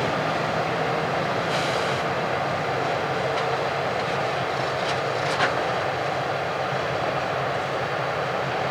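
Large farm machine running steadily, with a short hiss about one and a half seconds in and a sharp click a little past halfway.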